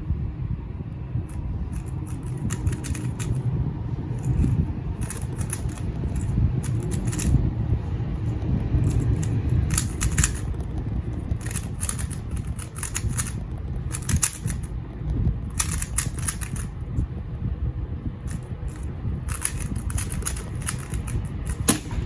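A MoYu RS3M 2020 magnetic 3x3 speedcube being turned fast through a solve: bursts of quick clicking and clacking layer turns with short gaps between them, over a low rumble of handling.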